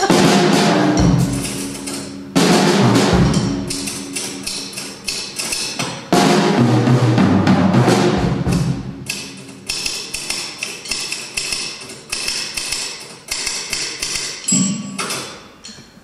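Drum kit played in loud phrases, drums with ringing cymbals, answered in call and response by a typewriter. From about nine seconds in come quick runs of sharp typewriter keystroke clicks.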